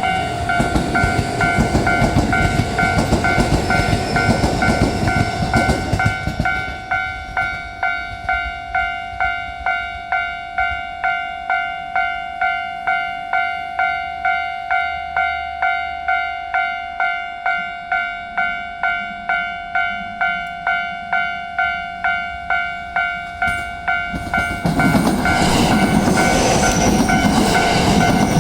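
Level-crossing warning bell ringing steadily at about two strokes a second, with no spoken announcement. A 227 series electric train runs past over the first six seconds, and another train's running noise rises loudly about 25 seconds in.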